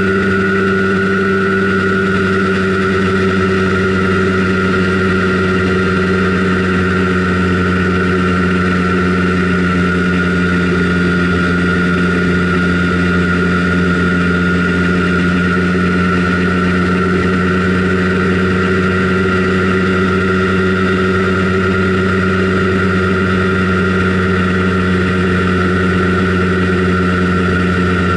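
Simson Schwalbe KR51/2 scooter's 50 cc single-cylinder two-stroke engine running under way at a steady cruising speed, its pitch holding nearly level throughout, heard from on board.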